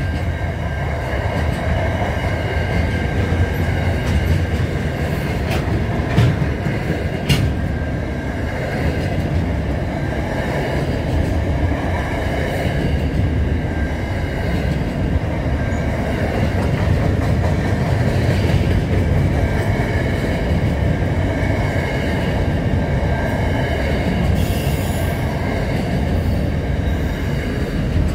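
Freight train of container wagons rolling past, a steady heavy rumble of wheels on rail, with a few sharp clicks over rail joints several seconds in.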